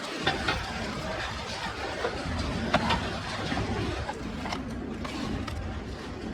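Scattered sharp clicks and knocks over a steady noisy background, the sharpest about a third of a second in and just under three seconds in.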